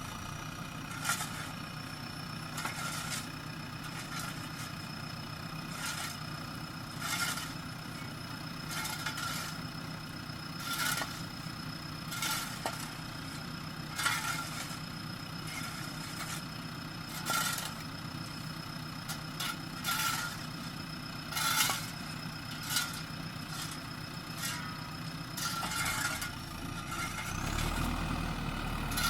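JCB backhoe loader's diesel engine running steadily under a thin, steady high whine, with short sharp knocks or clanks every second or two. Near the end the engine gets deeper and louder, as if revving up.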